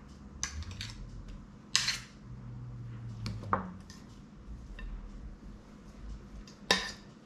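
A utensil clinking and knocking against a mixing bowl while a potato salad is stirred together, with scattered light clicks and two sharper knocks, one about two seconds in and one near the end.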